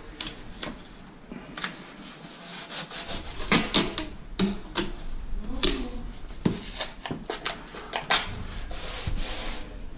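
Masking tape being pulled off the roll, torn and rubbed down by gloved hands over a laminate stair nose: an irregular string of short rips and rubbing strokes.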